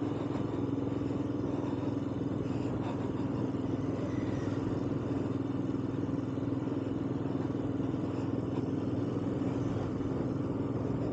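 Royal Enfield Himalayan's single-cylinder engine running at a steady, even speed while riding along a rough chalk track, over a constant rush of wind and tyre noise.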